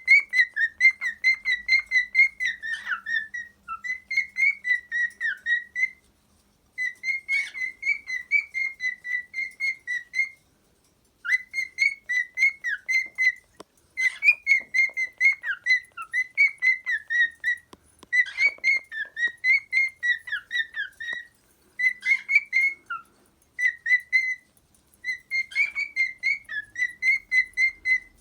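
Cockatiel whistling its song: fast strings of short, clear notes, about four a second, in phrases broken by brief pauses.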